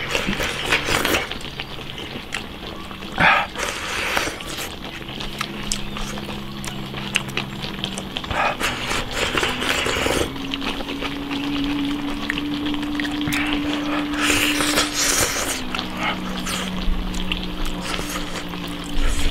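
Wet slurping and chewing in repeated bursts as soup-soaked rice is shovelled from a bowl into the mouth with chopsticks, over soft background music with slow, held notes.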